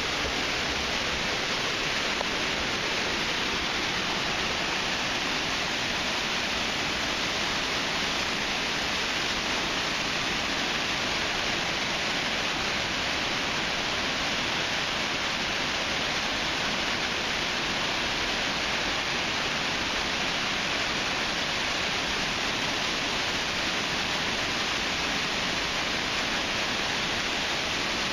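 Tall waterfall pouring down a rock face into a pool: a steady, unbroken rush of falling water.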